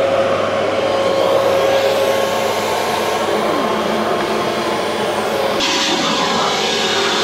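Vacuum cleaner running steadily as its hose nozzle sucks dust and cobwebs out of an old car's interior. The sound turns abruptly brighter about two-thirds of the way through.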